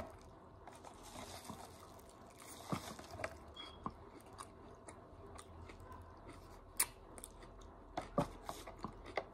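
Close-up mouth chewing and smacking of a crunchy tostada salad: irregular wet clicks and crunches, with a few sharper ones about three seconds in and again near the end.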